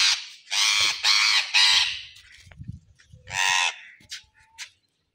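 Young green parakeet squawking harshly while held in a hand, with about four rasping screeches in the first two seconds and another about three and a half seconds in.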